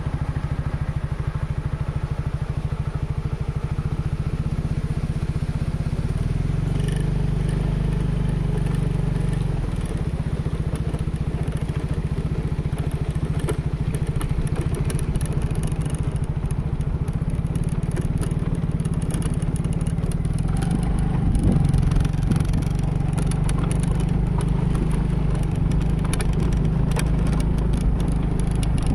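Yamaha Mio scooter's four-stroke single-cylinder engine running steadily while riding, its note shifting a few times, with a louder stretch a little past twenty seconds. Light clatters are scattered through the second half.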